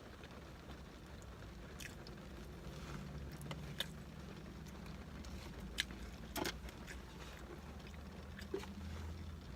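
Steady low rumble inside a car cabin, with a few short, sharp mouth smacks and clicks from eating fries.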